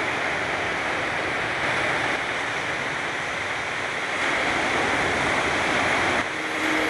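Ocean surf washing on a beach, a steady, even rush of noise that dips briefly a little after six seconds.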